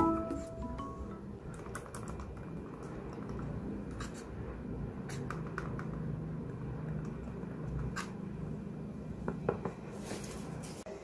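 Light plastic handling of a slim wireless computer mouse: a few scattered sharp clicks and soft rubbing as it is turned over in the hands and set down beside a keyboard, over a low steady hum.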